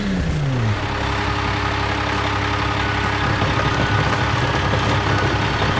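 A heavy vehicle's engine running steadily, as a cartoon sound effect. In the first second a falling pitch glide settles into the even running.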